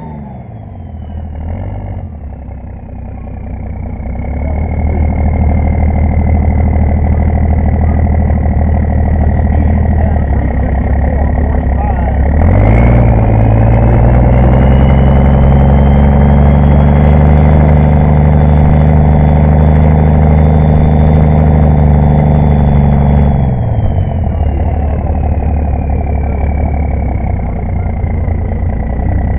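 Pulling tractor's engine running at low speed, then revving up about twelve seconds in and held at high revs for about ten seconds before dropping back. A high whistle rises and falls with the engine speed.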